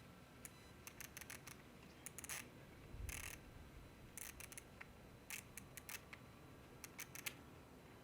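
Faint plastic clicks from a disposable film camera in short clusters, a slightly heavier click about three seconds in: the shutter firing and the thumbwheel winding the film on.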